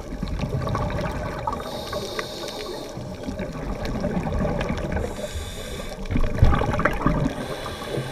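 Scuba regulator breathing underwater: two hissing inhalations, about two seconds in and about five seconds in, with the bubbling rumble of exhaled air around them.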